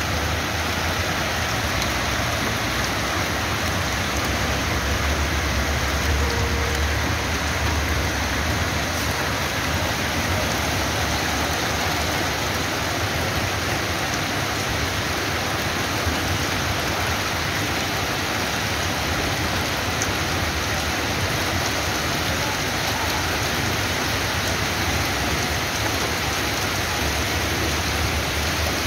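Heavy downpour of rain mixed with hail, a steady even hiss of water striking the street and flowing over it. A low rumble sits under it for the first several seconds.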